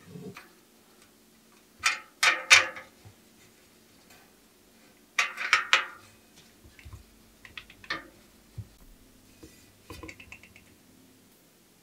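Light metallic clinking and clattering of small parts and tools handled at an aluminium bicycle rim. There are two loud bursts of clicks, about 2 and 5 seconds in, then softer scattered ticks.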